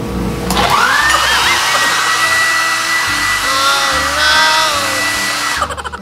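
Handheld hair dryer switched on about half a second in: a loud rush of air with a motor whine that rises, then holds steady. It cuts off shortly before the end. Background music plays underneath.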